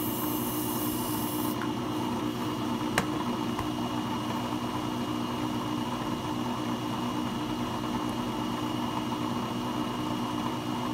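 AMCO brake lathe running with a brake rotor spinning on the arbor, not cutting: a steady motor hum with a thin high whine. For the first second and a half an aerosol can hisses as Dykem layout fluid is sprayed onto the rotor, and a single sharp click comes about three seconds in.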